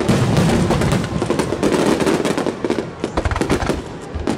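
Finale barrage of aerial firework shells bursting in rapid succession, many bangs overlapping with crackle. The bangs thin out and grow quieter in the last second or so.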